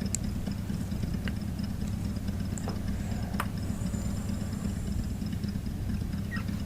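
Steady low mechanical hum, like an engine idling, with a few faint clicks of handling.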